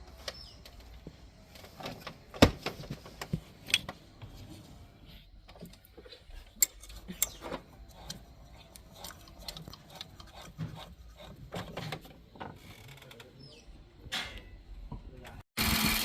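Scattered metal clicks and clanks of hand tools and parts as a supercharger and its belt are worked into place in a cramped engine bay. Near the end it cuts suddenly to the engine running.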